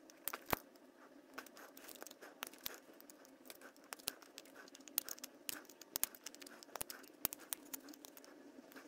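Small orange-handled snips nibbling away the plastic wheel arch of a model car body: a run of quiet, irregular sharp clicks and crunches as each cut bites through the plastic.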